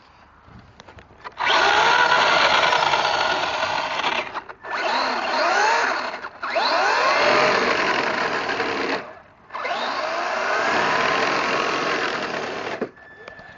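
Traxxas Slash radio-controlled truck's electric motor and drivetrain whining under throttle in four bursts, the pitch gliding up and down as it speeds up and slows. The owner asks whether this whine is normal.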